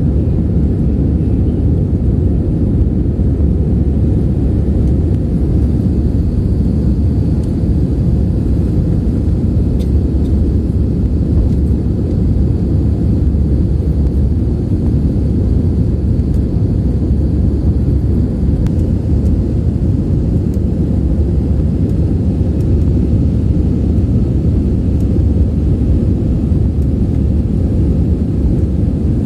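Steady low rumble of jet engines and rushing air heard inside a jet airliner's cabin on its approach to land. A faint high whine comes and goes in the first half.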